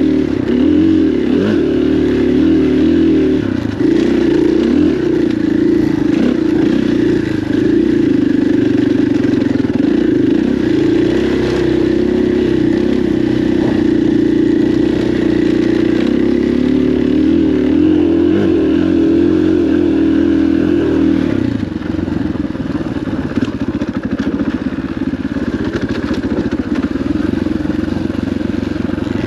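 KTM dirt bike's single-cylinder engine under way on a trail ride, revs rising and falling with the throttle. About three-quarters of the way through it eases off and runs lower and quieter.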